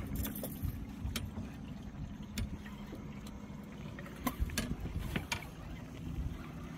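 Spinning reel being cranked under load as a hooked fish is reeled in, a steady mechanical whirr with a few separate sharp clicks.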